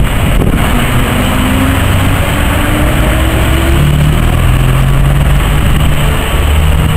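Vintage London Country RT-type double-decker bus's diesel engine pulling away, its pitch rising in steps as it accelerates through the gears. A black vintage saloon car drives past close by.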